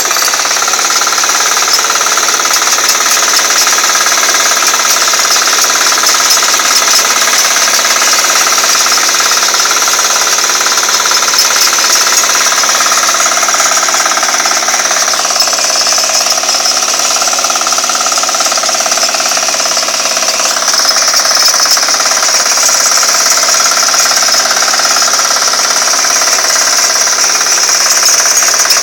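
Walk-behind rotary tiller's small engine running steadily under load as the rotary tines churn through weedy soil, with a brief dip and recovery in pitch about halfway through.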